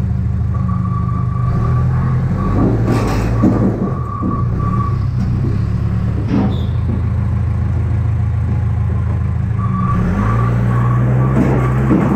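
Engine of the vehicle hauling a streetcar sweeper on a chain, running steadily and changing speed a few times. A few sharp metal knocks come through, along with an on-and-off high whine.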